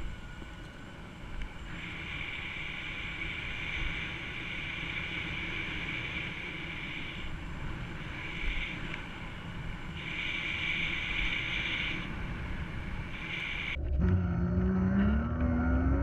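Electric bicycle hub motor whining under throttle over wind and tyre rumble on the camera microphone, the whine cutting in and out. Near the end a louder whine rises steadily in pitch as the bike speeds up.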